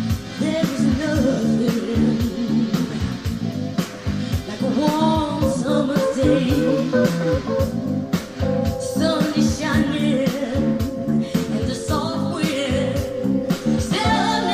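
A song with singing and guitar, played from ONKYO D-66RX bookshelf speakers driven by a Nobsound 6P1 vacuum-tube amplifier and recorded through the air in the room.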